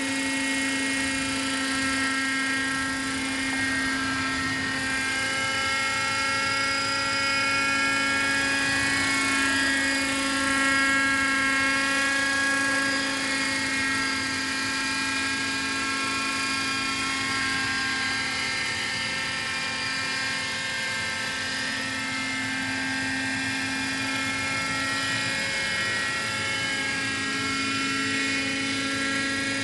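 Radio-controlled model helicopter in flight: a steady whining hum from its motor and rotor, the pitch wavering slightly up and down as it is flown.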